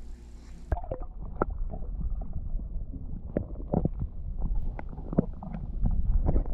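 About a second in, the sound turns muffled as the microphone goes under the lake's surface: a low water rumble with scattered knocks and clicks, heard underwater.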